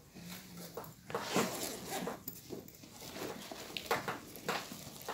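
Chalk writing on a blackboard: a run of short, irregular scratching and tapping strokes as words are written out.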